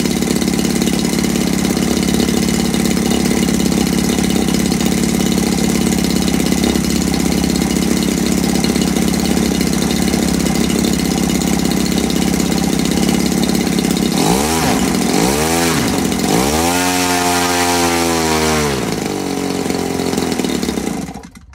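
CRRC 40cc two-stroke petrol model-aircraft engine running steadily at high speed, turning a wooden propeller. About two-thirds of the way through it is revved up and down three times, the last rise held for about two seconds, then it settles lower and cuts off just before the end.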